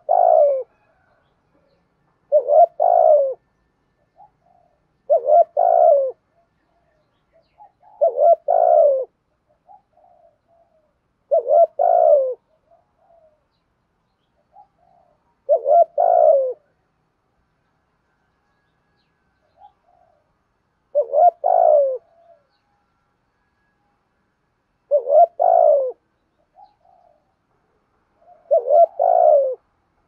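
Spotted dove cooing: a short phrase of falling coos repeated about nine times, every three to five seconds. This is the 'thúc gù' coo that keepers use to stir up decoy doves.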